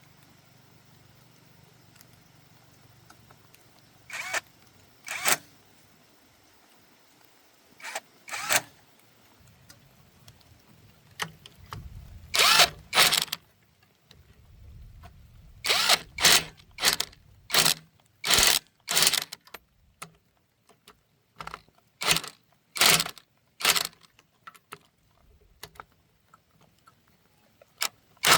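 Irregular series of short, sharp metal-on-metal strokes from hand-tool work on engine parts, a few spaced apart at first, then coming thick and fast over the second half.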